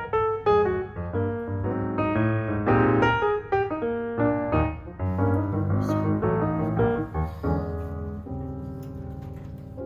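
Background piano music: a quick run of notes, settling about three quarters of the way in onto a held chord that slowly fades.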